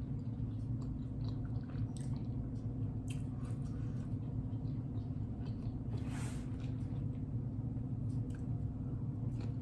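Close-miked chewing and wet mouth clicks of a man eating, with one short hissing breath about six seconds in, over a steady low hum.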